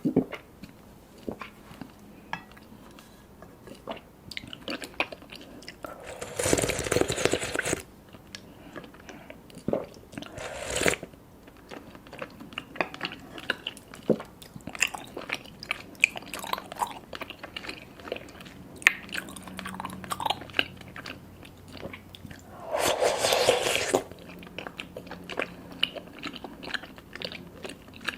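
Close-miked chewing of sticky, chewy tapioca boba pearls, with many small wet mouth clicks. Twice it is broken by a loud slurp through a straw lasting about a second and a half, with a shorter slurp in between.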